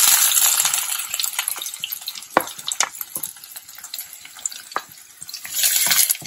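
Chopped red onion dropping into hot ghee and oil in a frying pan, sizzling loudly at first and fading. A wooden spatula scrapes and clicks against the plate, and the sizzle swells again near the end as more onion goes in.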